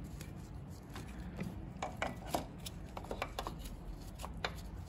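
Light, irregular metal clicks and knocks as a replacement serpentine belt tensioner is handled and fitted against its aluminum mounting bosses on the engine.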